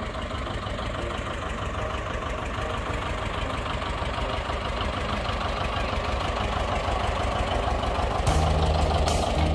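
John Deere two-cylinder tractor engine running as the tractor drives slowly closer, with an even, rapid beat that grows gradually louder.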